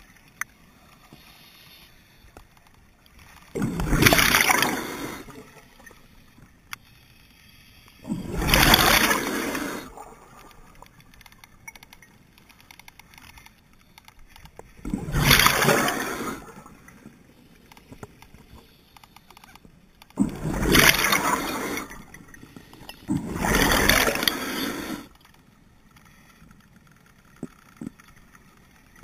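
Scuba diver's regulator exhaling, heard from a head-mounted camera: five rushes of bubbles, each lasting one and a half to two seconds, coming every three to seven seconds.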